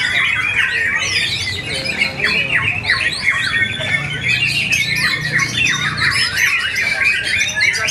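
White-rumped shamas singing: a fast, continuous stream of varied chirps, trills and whistled glides, several birds overlapping.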